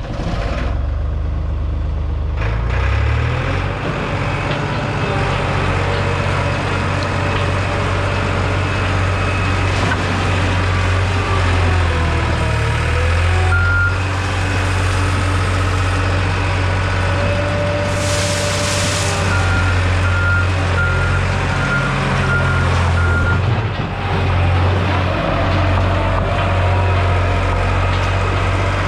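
New Holland LX885 skid steer's diesel engine running steadily after start-up, its pitch dipping briefly partway through as it is worked. Its backup alarm beeps once near the middle, then a run of about seven beeps later on, with a short hiss shortly before.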